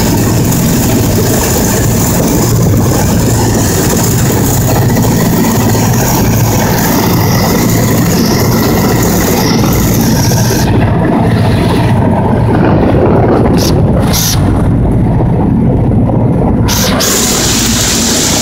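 The Ford Tri-Motor's three radial engines and propellers droning steadily in cruising flight, heard loud inside the cabin. The higher hiss drops away for several seconds past the middle while the low drone carries on.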